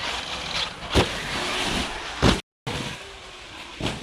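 Electric Traxxas RC monster trucks driving over rough ground: a steady rush of motor and tyres, broken by sharp knocks about a second in, just past the middle and near the end, as the trucks hit bumps and land. The sound cuts out briefly in the middle.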